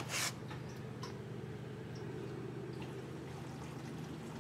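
Gasoline being poured from a gas can into a generator's fuel tank, a quiet steady trickle after a short clatter as the pouring begins.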